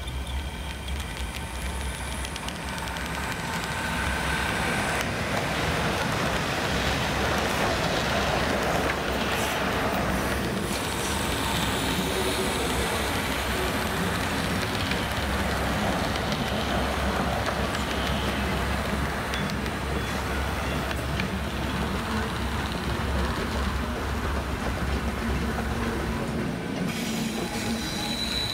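H0-scale model train running on the track, with a steady low hum under its running noise; it grows louder over the first few seconds, then runs steadily.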